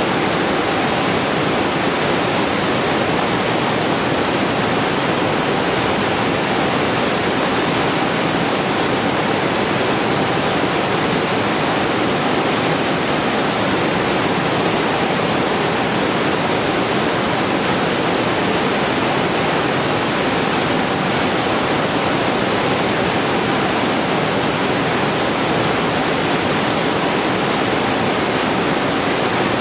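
Waterfall, water falling and splashing in a steady, dense rush.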